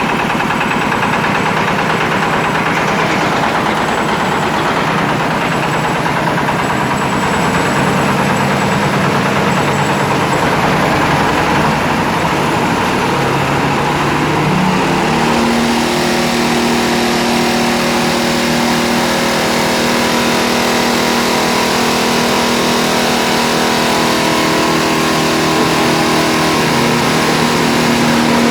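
Mini jaw stone crusher running, a loud steady engine-driven drone. About halfway through its pitch rises, then holds steady at the higher speed.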